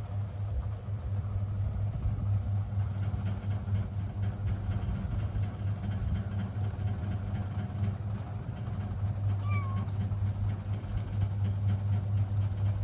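A cat gives one short, high meow about nine seconds in, over a steady low hum.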